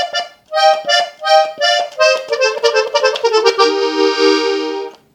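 GCF three-row diatonic button accordion playing a melody of quick short notes, then ending on a long held chord that stops near the end.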